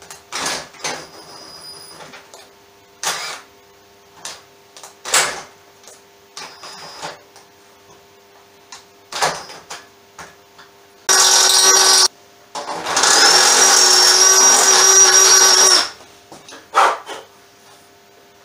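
Cordless drill widening a mounting hole in a metal sander stand's frame. It runs in two bursts, a short one about eleven seconds in and then a longer one of about three seconds with a steady high whine. Scattered light knocks and clicks come before them.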